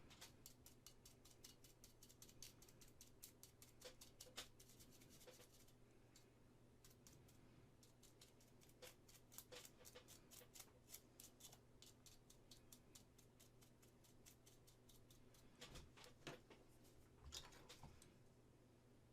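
Faint, rapid scratching strokes of a small hand tool working a seam line on a resin model. The strokes come thick and fast for the first few seconds, then in scattered bursts.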